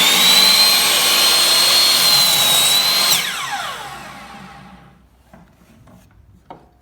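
Miter saw motor with an 8-1/4-inch 40-tooth carbide-tipped blade running at full speed with a steady high whine, cutting through a thin cedar board. About three seconds in the trigger is released and the blade spins down, the whine falling in pitch and fading over about two seconds, with a light click near the end.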